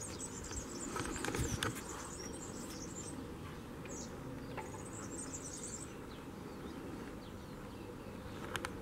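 Outdoor ambience: a steady low background with scattered faint high chirps and a few light clicks.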